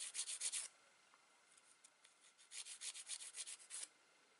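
Nail file filing a nail's free edge straight in quick back-and-forth strokes: one run stops under a second in, and a second run goes from about two and a half to nearly four seconds in.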